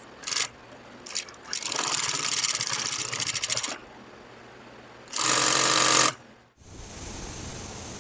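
Industrial sewing machine stitching heavy webbing strap onto PVC tarp in short runs: a brief burst, a run of about two seconds, then a louder run of about a second, each with rapid even needle ticking. Near the end a steady hiss of room noise takes over.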